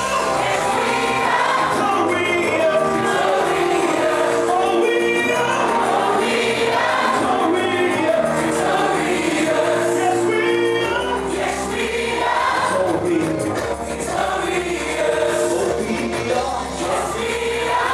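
Live gospel music: a vocal ensemble singing together into microphones, backed by a band.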